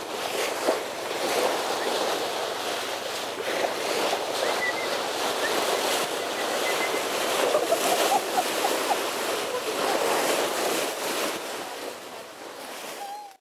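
Sea water rushing and splashing along a ship's bow as it moves under way, with wind buffeting the microphone. The sound fades out over the last second or so.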